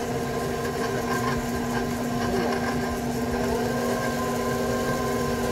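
Electric stand mixer running steadily at low speed, its flat beater working eggs into cooked choux paste in a stainless steel bowl; a constant motor hum.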